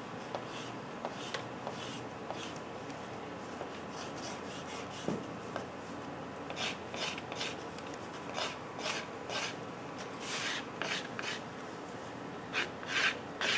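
Pastel stick scratching across paper on a drawing board in repeated short strokes. The strokes come faster and louder in the second half, about one or two a second.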